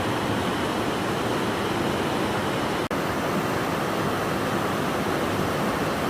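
Rushing water of a creek below a high bridge: a steady, even rush that cuts out for an instant about three seconds in.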